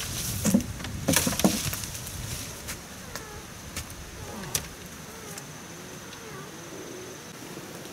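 Hollow knocks and clatter of bamboo poles as a woven bamboo gate frame is lifted and stood upright, loudest in the first two seconds. A steady high insect drone carries on behind.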